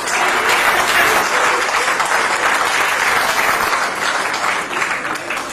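Audience applauding in a hall, full at first and tapering off near the end.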